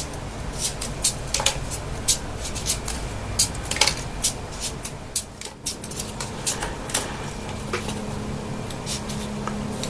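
Folded paper triangle units for 3D origami being handled and slotted together: irregular sharp paper clicks and crinkles over a faint steady low hum.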